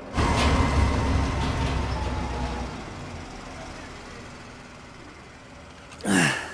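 A 20-ton industrial road roller's engine running as the roller passes over the wooden board holding the tungsten carbide ball. It comes in suddenly with a heavy low rumble and fades away over several seconds. A man's voice exclaims near the end.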